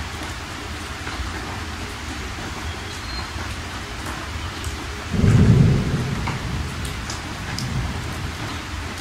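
Steady rain-like hiss with a low rumble underneath. A loud low rumble of thunder swells about five seconds in and dies away over a second or so.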